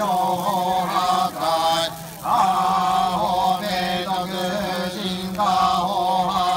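Shugendō yamabushi chanting a sutra or mantra during a goma fire rite: a low, nearly monotone chant in phrases of about a second, broken by short pauses, over a steady low drone.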